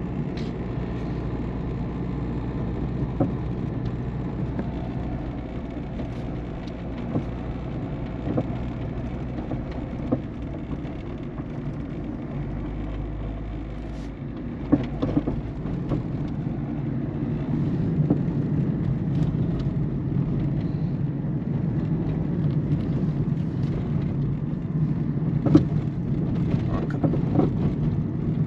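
2008 Peugeot 207 1.4 turbo diesel being driven, heard from inside the car: steady engine and road noise that grows louder about two thirds of the way in, with scattered sharp knocks, the loudest about halfway and near the end. The knocks are the front-suspension clunk over bumps and holes, which the owner puts down to a worn strut mount, ball joint, sway bar link or control arm bushing.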